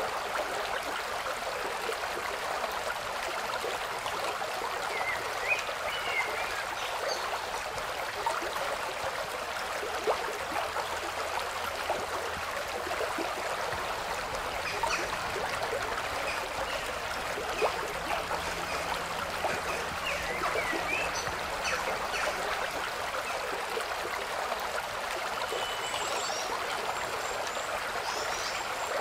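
A steady rushing noise, like running water, with a few brief high chirps and scattered faint clicks.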